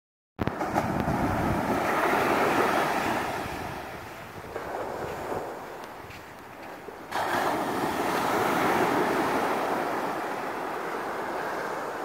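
Ocean surf breaking and washing up the sand, with wind buffeting the microphone. The wash swells, fades, then rises again suddenly about seven seconds in.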